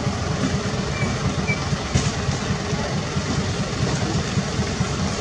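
Steady low rumbling noise, with two brief faint high chirps about a second in.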